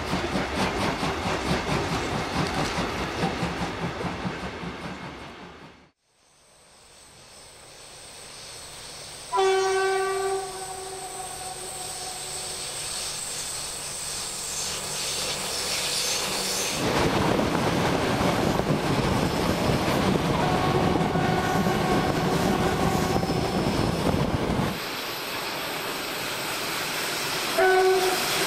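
Class 52 steam locomotive 52 8080-5 working hard with a rhythmic exhaust beat that fades away. After a cut, a diesel locomotive sounds a single steady horn blast about nine seconds in, then its engine and the train's wheels grow loud as it passes. Near the end, a second short horn blast.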